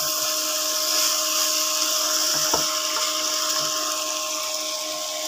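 Mixed vegetables frying in a non-stick pan on an induction cooktop: a steady hiss under a steady electrical whine from the cooktop, with a light spatula knock against the pan about two and a half seconds in.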